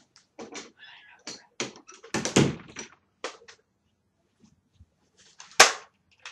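Nerf Retaliator foam-dart blaster being handled and fired: a run of plastic clicks and clacks with a heavier thunk about two seconds in, then one sharp shot about five and a half seconds in.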